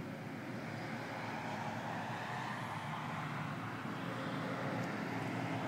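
Steady rumble of distant motor noise, slowly growing louder.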